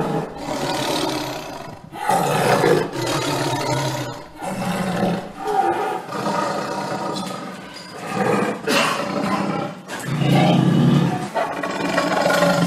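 A string of big-cat roars and growls, one every second or two, with short breaks between them.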